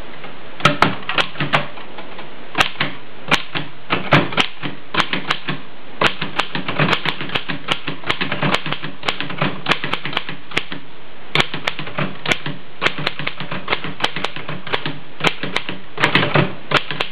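A 1919 Oliver No. 9 manual typewriter being typed on: sharp clacks of the type bars striking, a few separate strokes at first and then quicker runs of several a second, with a brief pause about two thirds of the way through.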